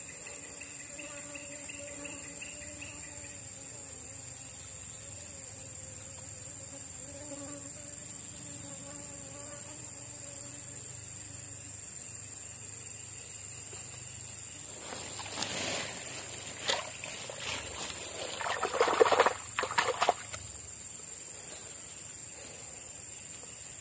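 Steady, high-pitched drone of insects such as crickets or cicadas, with a faint low hum in the first ten seconds. From about 15 to 20 seconds in, a run of rustling scrapes in dry grass and leaves is louder than the drone, loudest near 19 seconds.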